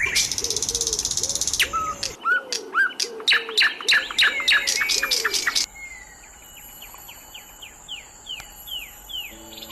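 Songbird calls: a fast buzzy trill, then a string of sharp chirps. About two-thirds of the way through it cuts to a quieter series of short downward-slurred chip notes, about three a second.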